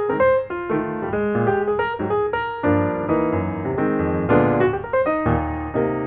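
Background piano music: a melody of quick notes over chords.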